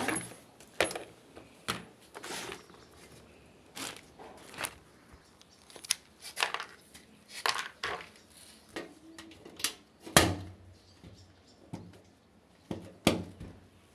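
Irregular clinks and knocks of hard objects being handled, about fifteen scattered through, the loudest about ten seconds in.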